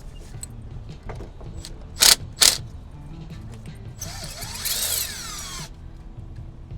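A cordless power tool working on bolts: two short, loud bursts, then a longer run of about a second and a half with a falling whine. Background music plays underneath.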